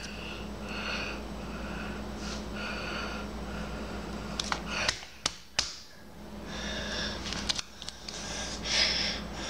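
Slime mixed with foam beads being squished and folded by hand, with soft squelching and a few sharp clicks and pops about five seconds in.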